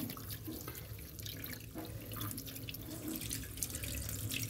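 Kitchen tap water running into a stainless steel sink, splashing over raw fish steaks on a plate as they are rubbed and rinsed by hand.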